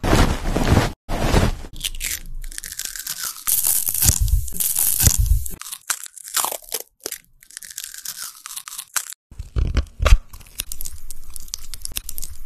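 Close-miked crunching, tearing and crackling of food preparation in quick cuts: a peeled mandarin being skewered on a stick, then papery garlic skin being pried off with a small knife.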